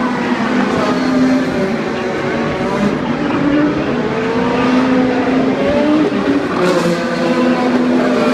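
Several IndyCar 2.2-litre twin-turbo V6 engines running hard on track at once, their pitches overlapping and rising and falling as the cars accelerate, shift and pass.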